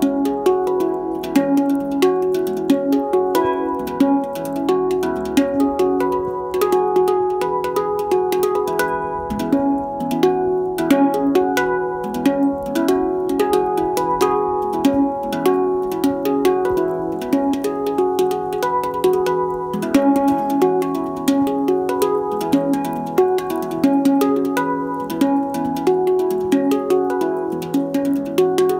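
Handpan (hang drum) played with the fingers: a quick, steady stream of strikes on its tuned steel notes, each note ringing on and overlapping the next.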